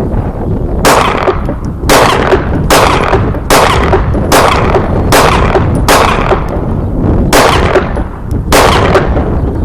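A firearm fired nine times at a slow, steady pace, roughly a shot a second with one longer pause near the middle, each report sharp with a short echoing tail.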